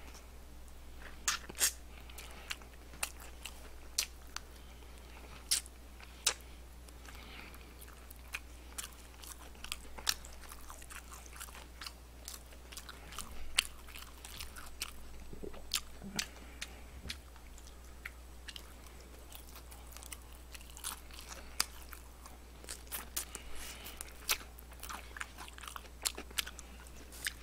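A person chewing and biting fried chicken close to a microphone: scattered crunches from the crispy coating and wet chewing, irregular throughout. A steady low hum runs underneath.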